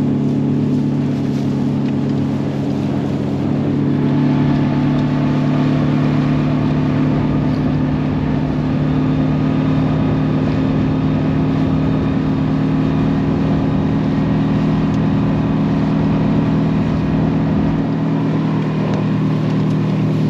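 Mercury 30 hp ELHPT tiller outboard running steadily at high throttle, the inflatable boat up on plane at about 33 km/h.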